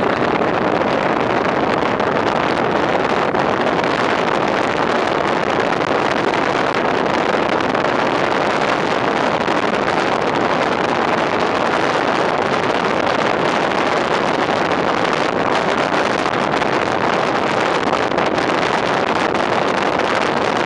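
Steady rush of wind and road noise from a fire engine driving at speed, heard through a microphone mounted on the outside of the truck, with the wind buffeting the microphone.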